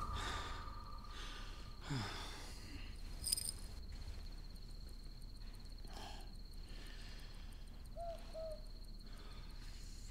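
Quiet night-time ambience: a cricket trilling steadily at a high pitch, with a short two-note owl hoot near the end. The last of a music cue fades out at the very start.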